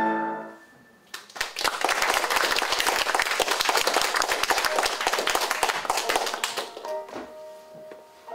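The last sung note and piano chord die away, then the audience applauds for about five seconds, thinning out as piano notes start near the end.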